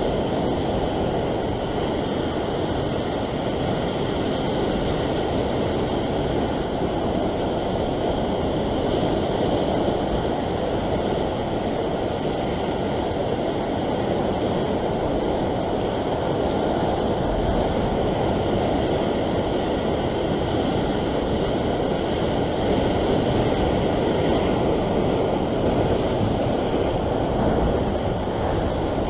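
Steady noise of ocean surf washing over a rock ledge, mixed with wind on the microphone.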